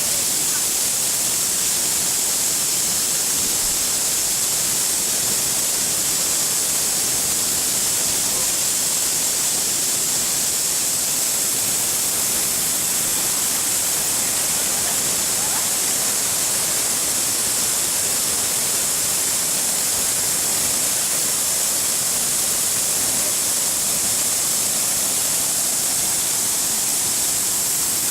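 Waterfall rushing steadily, a constant high hiss of falling water.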